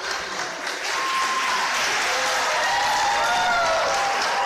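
Audience applauding, swelling about a second in and then holding steady, with a few voices calling out over the clapping.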